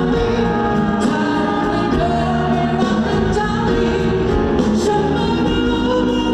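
Live pop song performed on stage: singing over full band accompaniment, loud and continuous.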